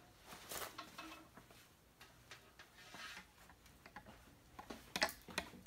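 Faint, scattered light clicks and soft rustles of handling, with a quicker, louder run of clicks near the end.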